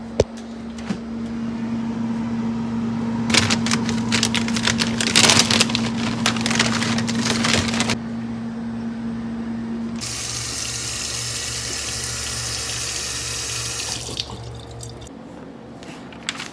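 Water running from a tap into a sink: irregular splashing from about three to eight seconds in, then an even steady stream from about ten to fourteen seconds. A steady low hum runs under the first part and stops about ten seconds in, and there is a sharp click right at the start.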